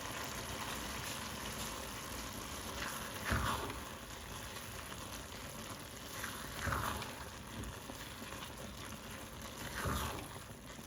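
Liquid boiling in a cooking pot, a steady bubbling hiss, with a few soft knocks spread through it.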